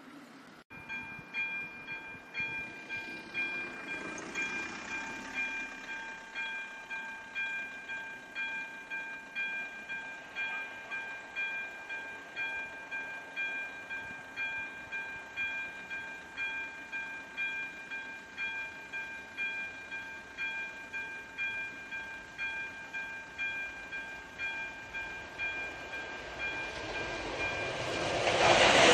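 Level-crossing warning bell of an AŽD 97 crossing (electronic 'umíráček' bell), starting about a second in and ringing in steady, evenly spaced strokes. This signals that a train is approaching. Near the end the rumble of the approaching train rises and drowns out the bell.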